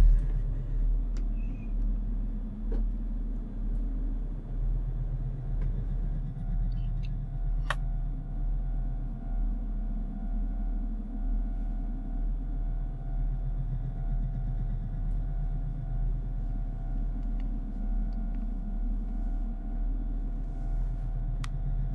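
A deep, continuous rumbling drone that swells and fades about every two seconds, opening with a sudden low boom. Faint steady high tones join about six seconds in.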